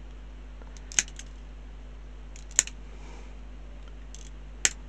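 Hobby side cutters snipping small bits off a plastic model kit part: three sharp snips, spaced about one and a half to two seconds apart.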